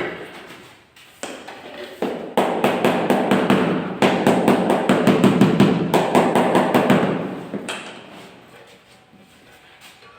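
A mallet tapping a marble floor tile down into its bed. A single knock comes first, then a fast run of strikes about two seconds in, six or seven a second, loudest in the middle and fading out near the end.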